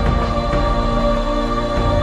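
Background music with sustained dark chords and low drum hits, one just before and one near the end.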